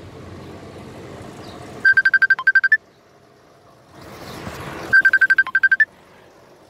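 Phone ringtone: a fast run of high electronic beeps lasting about a second, heard twice about three seconds apart, over low steady outdoor background noise.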